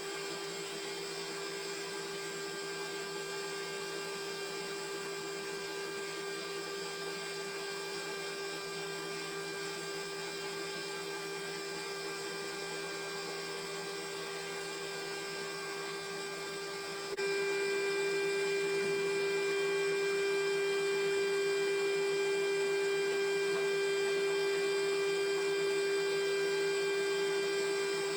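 Sawmill machinery running with a steady, high-pitched mechanical hum. It gets abruptly louder about two-thirds of the way through.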